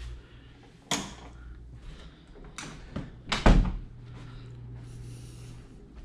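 Wall rocker light switches clicked, then a few more knocks and a heavier thump about three and a half seconds in, over a low steady hum.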